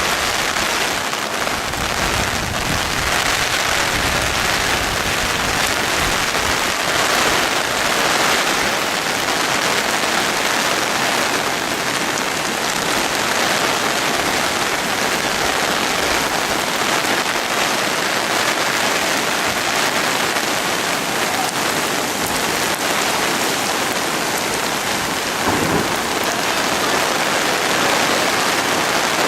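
Heavy rain falling steadily, a dense, even hiss of a torrential downpour.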